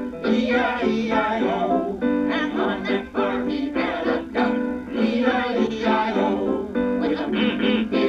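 Music: an up-tempo song led by plucked guitar.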